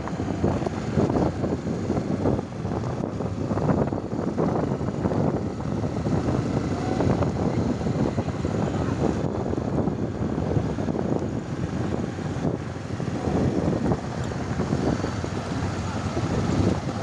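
Wind buffeting the microphone and tyre noise on a dirt road while riding, with a small motorcycle's engine running just ahead; an irregular, continuous rumble.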